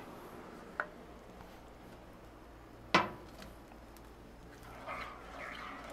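A small cast iron skillet set down on the steel top of a flat-top griddle with a single sharp clank about three seconds in, after a light clink about a second in.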